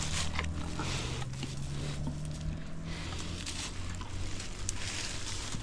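A steady low engine hum from a vehicle, with light rustling and scattered clicks over it. The higher of its two tones fades out about three seconds in.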